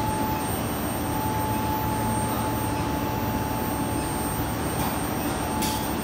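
75-kilowatt induction melting furnace and its power supply running at full power while melting a copper charge: a steady whirring noise with a thin constant tone.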